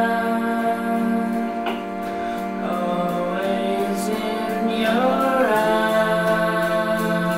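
Experimental music: a sustained drone of layered held tones. About five seconds in, the tones slide in pitch and settle into a new held chord.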